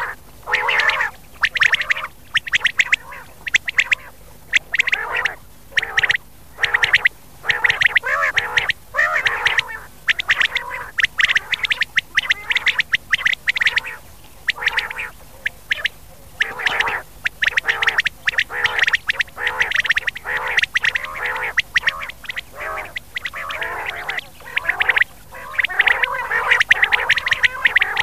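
Rain quail calling over and over in quick runs of sharp, rasping notes with short gaps between them. It is a recorded lure call of the kind played at night to draw quail into nets.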